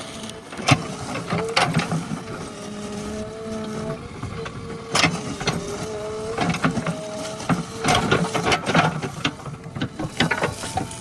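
JCB backhoe loader at work: its engine and hydraulics give a steady note that wavers up and down in pitch, over frequent sharp knocks and clanks.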